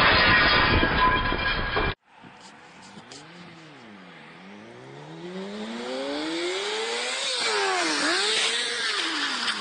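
Motorcycle engine revving, its pitch sliding up and down, then climbing steadily and getting louder as it approaches, with quick dips and rises near the end. Before that, about two seconds of loud rushing noise cut off suddenly.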